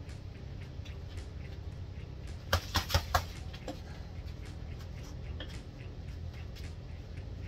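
Gloved punches landing on a hanging heavy bag: a quick four-punch combination about two and a half seconds in, the four hits packed into well under a second. A steady low hum lies underneath.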